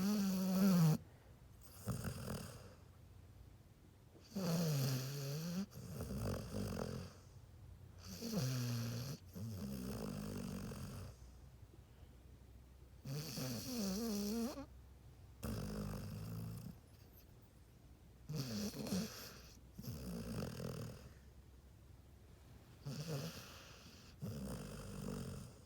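Dog snoring in slow, regular breaths: each breath gives two snores, one with a wavering pitched tone, about every four to five seconds.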